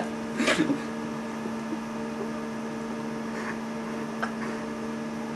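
Steady electrical mains hum, with a short noise about half a second in and a few faint small clicks of a folded staple being worked into a mechanical pencil.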